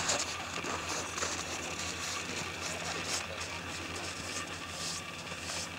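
Steady outdoor background hiss with a faint low steady hum and no distinct event.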